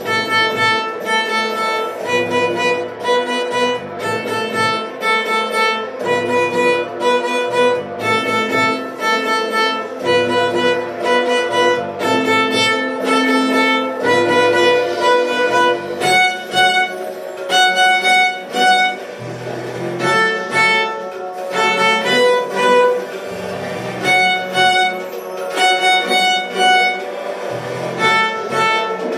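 A violin playing a bowed melody in short repeated phrases of held notes, over a backing accompaniment with a low bass line.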